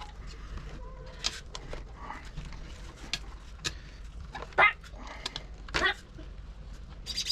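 Dog barking, with two loud barks about four and a half and six seconds in and some fainter yips between.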